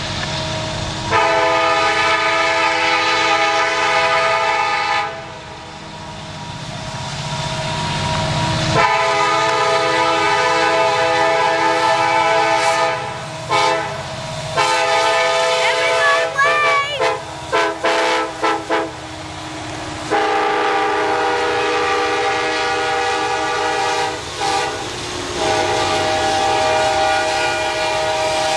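Diesel locomotive air horn on a Norfolk Southern freight train, sounding a multi-note chord. It gives several long blasts, with a run of quick short blasts in the middle, over the rumble of the approaching and passing locomotives and cars.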